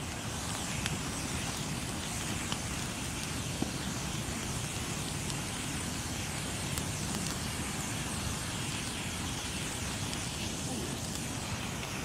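Brush-pile bonfire burning with a steady rushing noise and a few faint crackling pops.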